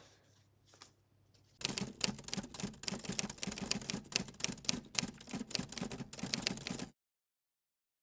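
A fast, irregular clatter of typewriter-key clicks, the kind of sound effect laid under a caption as it types onto the screen. It starts abruptly a second and a half in and cuts off suddenly about a second before the end.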